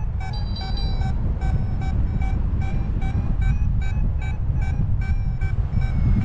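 Paragliding variometer beeping in a fast, even series of short pitched beeps, about two to three a second, the tone it gives when the glider is climbing in lift. Low wind rumble on the microphone runs underneath.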